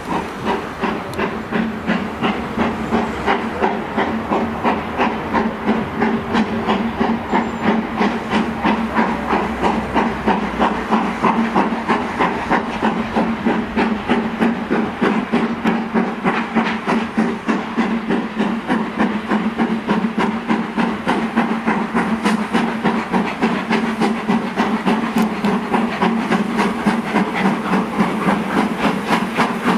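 Steam locomotive hauling a passenger train, its exhaust beating in a steady rhythm of loud chuffs, about two to three a second, with steam hissing.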